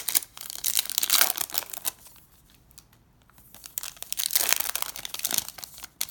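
A foil trading-card pack wrapper being torn open and crinkled by hand, in two bouts with a short pause between.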